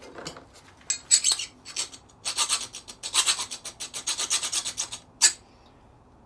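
A hand file rasping across the metal of a decking light, in a run of quick short strokes with a last single stroke about five seconds in, filing into the surface to check the metal under a coat of paint.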